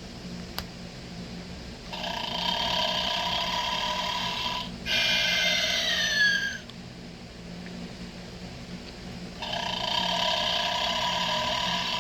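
Animated snoring Santa figure playing its snore sound. A long drawn-in snore is followed by a shorter exhale with a falling whistle, then a pause before the next snore begins near the end. A steady low hum runs underneath, with a single click about half a second in.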